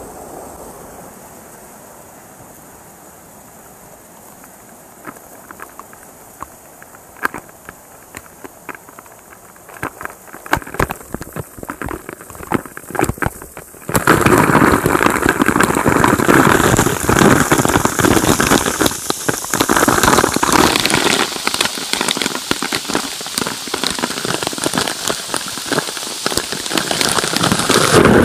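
Waterfall water striking an action camera during an abseil down the falls: scattered drops crackle on the camera, growing denser, then about halfway through a sudden jump to a loud, dense rush of spray as the camera goes into the falling water.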